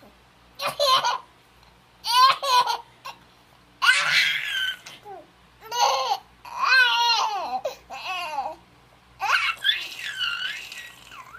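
Seven-month-old baby laughing in about seven short bouts of high-pitched giggles, with brief pauses between them.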